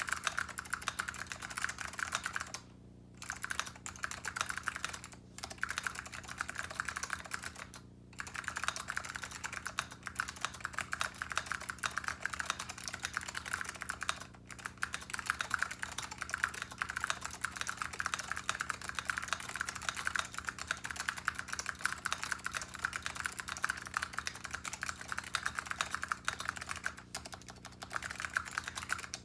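Fast, continuous typing on a TX87 mechanical keyboard with SKCM Blue Alps clicky switches in an aluminium plate and AEK keycaps: a dense run of sharp clicks, broken by short pauses a few times.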